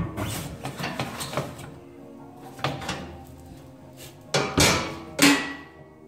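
Irregular clunks and scrapes as a board ramp and a wheel are handled on a metal motorcycle lift. The loudest three knocks come close together near the end.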